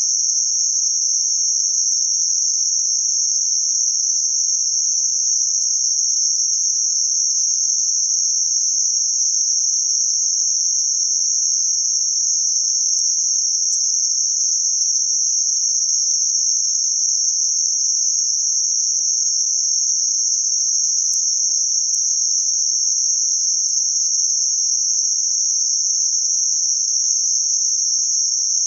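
Synthetic band-limited noise centred around 6051 Hz: a steady, unvarying high-pitched hiss.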